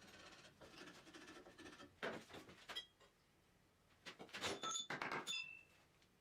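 Metal clinking and scraping in two short bursts, the second louder, with brief high ringing tones like pieces of steel knocking together.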